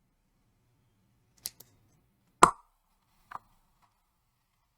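A few handling knocks on a workbench: two light clicks, then a sharp knock with a short ring, then a softer knock.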